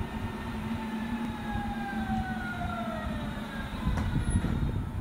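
Berlin S-Bahn electric train pulling in, the whine of its traction motors falling slowly in pitch as it slows, over a steady low hum. There is a sharp click about four seconds in.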